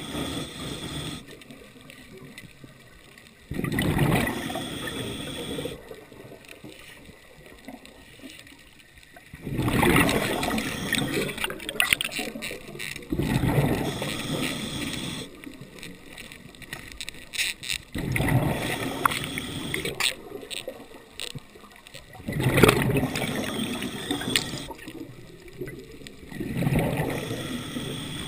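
Underwater sound picked up by a diver's camera: bursts of bubbling, rushing water every four or five seconds over a low hiss, with a few sharp clicks in the middle.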